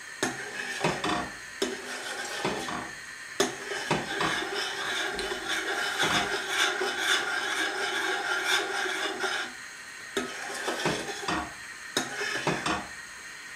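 Metal spoon stirring milk in a stainless steel saucepan, scraping and clinking against the pot's bottom and sides. A steady hiss runs underneath and drops away about nine and a half seconds in.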